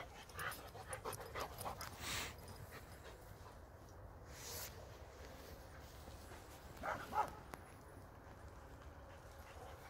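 Dogs barking faintly a few times, with two short barks close together about seven seconds in.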